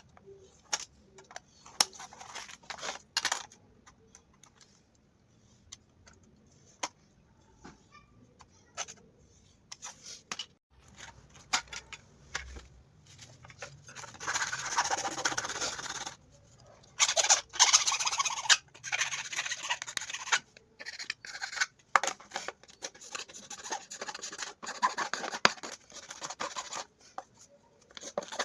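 Hand tools working PVC pipe and plastic parts: scattered clicks and taps at first, then, from about halfway on, repeated stretches of scraping and rasping noise lasting a second or two each.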